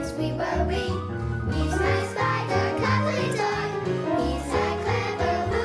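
Children's TV theme song: bouncy music with a steady bass line, a child's voice singing along.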